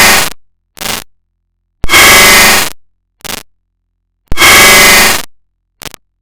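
A loud, harsh, static-like noise sound effect repeating in a loop: a long burst of about a second roughly every two and a half seconds, each followed by a short fainter burst, with dead silence between.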